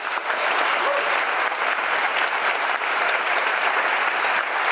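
Audience applauding: many hands clapping in a dense, steady patter, with cast members on stage clapping along.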